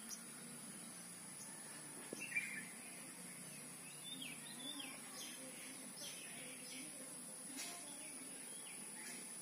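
Faint outdoor ambience with small birds giving short chirps now and then, a cluster about two seconds in and several more around four to five seconds, over a thin steady high tone.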